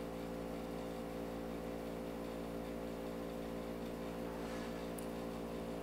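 Steady electrical mains hum with a buzzy edge, the background noise of the recording's microphone chain, running unchanged.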